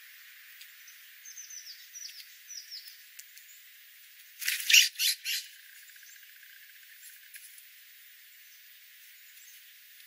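Small birds give a run of short, high, falling chirps. About halfway through come three loud, harsh, raspy calls typical of a California scrub-jay.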